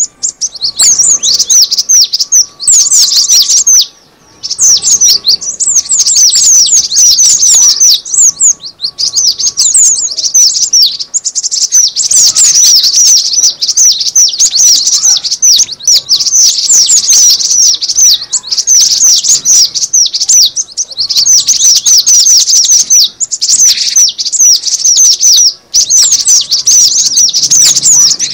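Cinereous tit (gelatik batu) calls played as a bird-lure recording: dense runs of quick, high chirps, broken by brief pauses every few seconds.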